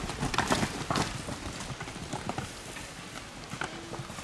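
Hooves clopping on hard ground: a quick run of knocks in the first second, then fewer and fainter ones.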